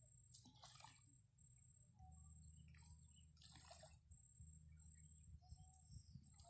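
Near silence: a faint steady low hum and a thin high tone, with a few soft brief rustles.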